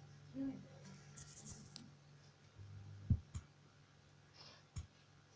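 Quiet pause with a faint, steady low hum and a few small clicks and knocks. The loudest click comes about three seconds in.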